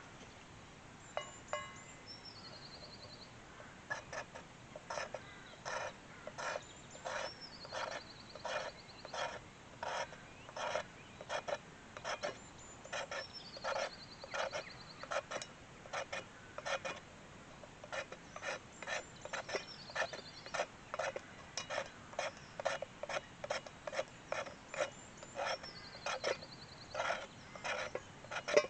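Knife blade scraping a thin wooden stick in short, quick strokes, about one to two a second, shaving fine tinder into a steel pan. The strokes begin about four seconds in.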